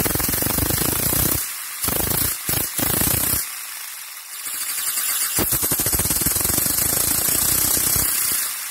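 3D-printed air-powered Wankel rotary engine running on compressed air: a fast, loud chatter of exhaust puffs over a hiss of escaping air. It breaks off briefly a few times and drops to a softer hiss for about two seconds in the middle before picking up again.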